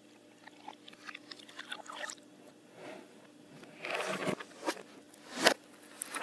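Milk and a plastic gallon jug being handled at a glass: light clicks and scrapes, a rush of liquid noise about two-thirds of the way in, and a sharp knock near the end.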